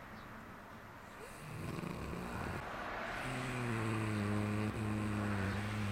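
A sleeping person snoring: a noisy breath about a second and a half in, then one long, low-pitched snore from about three seconds in. The sleeper has sleep apnea and is sleeping without the Nastent nasal stent they normally wear.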